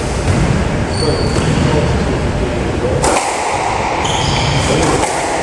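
A squash ball struck hard about three seconds in, one sharp crack ringing in the enclosed court, with high shoe squeaks on the wooden floor before and after it.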